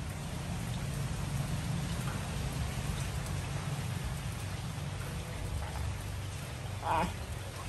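Steady rain noise with a low rumble underneath, and one short dog bark about seven seconds in.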